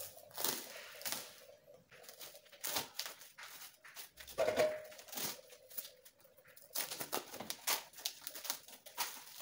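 Plastic food packaging crinkling and tearing as a cling-film-wrapped tray of raw chicken is cut and peeled open by hand, in a string of irregular crackles.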